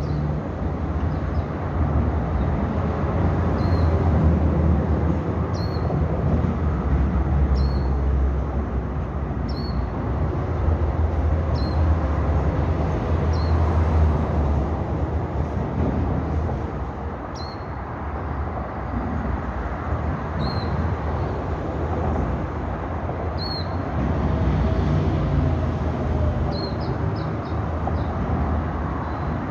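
Field recording of a steady low rumble of vehicles, with a small bird giving a short chirp about every two seconds and a quick run of chirps near the end.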